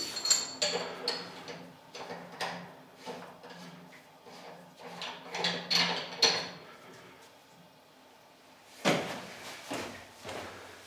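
Clanks, clicks and knocks of metal valve fittings and hose couplings being handled while a beer transfer hose is hooked up to the vat outlets in a tiled cellar, with one louder knock about nine seconds in.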